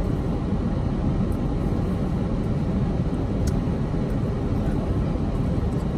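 Steady low rumble inside a parked car's cabin, with a single faint click about three and a half seconds in.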